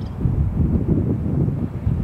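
Wind buffeting the camera microphone: an uneven, gusty low rumble.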